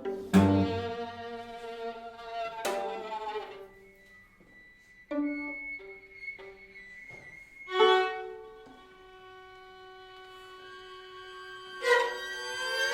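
A string quartet plays contemporary chamber music, violin and cello audible. Sharp accented chords ring and fade early on, followed by sparse quieter notes. About eight seconds in, a loud attack opens into a long held tone, and a loud entry comes near the end.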